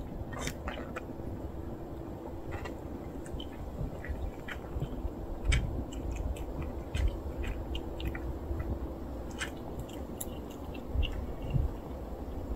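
Cats eating dry kibble from a bowl: irregular crunching and small clicks of chewing, over a steady low background hum.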